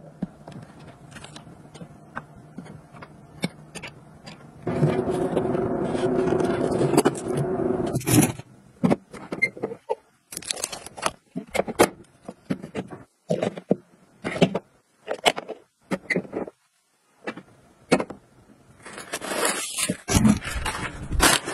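Hands handling small plastic and leather organizers: a run of clicks, taps and scrapes as cases and lids are opened, folded and set down. A steady hum lasts about three and a half seconds, starting about five seconds in.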